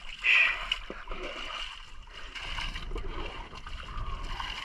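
Seawater splashing and dripping as a wet fishing net is hauled by hand over the side of a small outrigger boat, with a brief louder burst near the start.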